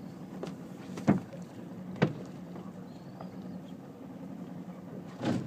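Small boat sitting on calm water: a low steady hum with three sharp knocks, about a second in, two seconds in, and a slightly longer one near the end.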